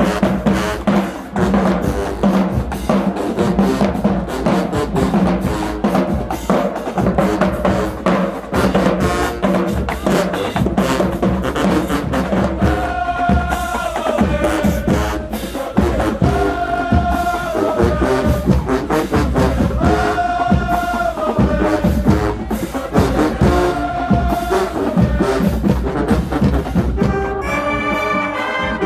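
University marching band playing: the drumline keeps up a busy, steady beat under the brass. About halfway through, the brass begins repeating a short held phrase every few seconds, and near the end it swells into full chords.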